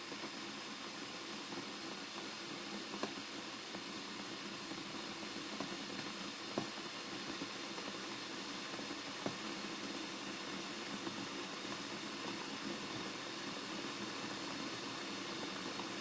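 Glass electric kettle heating water: a steady hiss with a few sharp ticks and pops scattered through it, the water not yet at a rolling boil.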